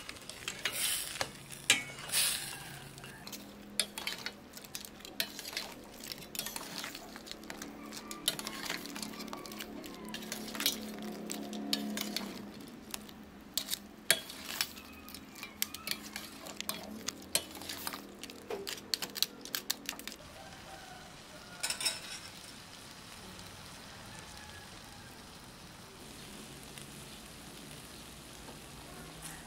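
Spatula clattering and scraping against a stainless-steel pot while crab, shrimp and corn are stirred through a sauce over the heat, with a steady sizzle underneath. The knocking stops about 20 seconds in, leaving only the quieter sizzle of the cooking sauce.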